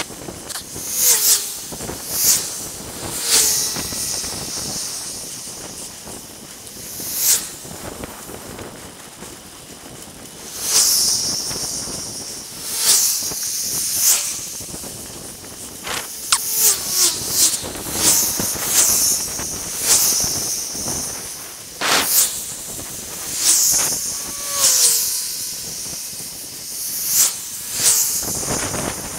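Steady hiss of wind and road noise on a bicycle-mounted camera's microphone, broken by sharp, loud bursts about every one to two seconds.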